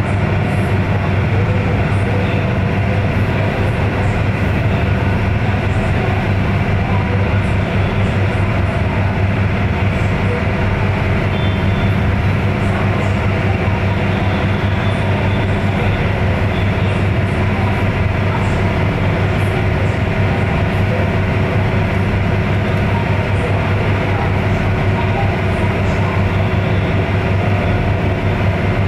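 Engine of the small Wakato Maru harbour ferry running steadily underway, a constant low drone.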